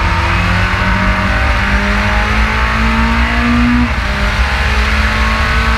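Race car engine heard from on board under hard acceleration, its pitch climbing steadily. About four seconds in, an upshift drops the pitch sharply, and it starts climbing again, with wind and road noise throughout.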